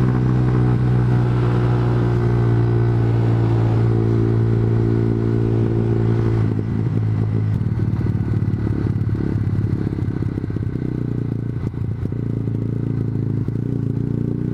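Honda CBR125R single-cylinder motorcycle engine running at a steady cruising speed, heard from the bike. About six seconds in, the steady engine note drops back and a rougher, uneven noise takes over.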